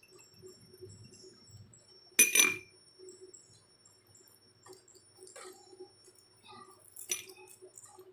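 A patterned glass bowl is knocked and clinked while a lime is squeezed over it by hand. There is one loud clink about two seconds in, a lighter one near the end, and small handling clicks between them.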